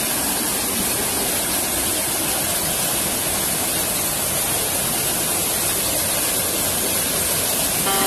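Small waterfall cascading over boulders into a rocky pool, a steady close rushing and splashing of water.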